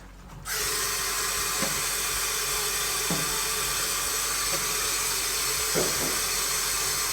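Water running steadily from a tap, an even hiss that starts abruptly about half a second in, with a few soft knocks under it.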